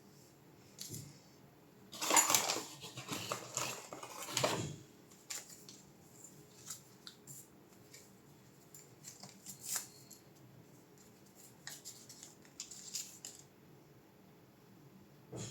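Hands working on a graphics card on the bench: a dense stretch of scraping and rustling about two seconds in that lasts a couple of seconds, then scattered light clicks and taps of small tools and parts.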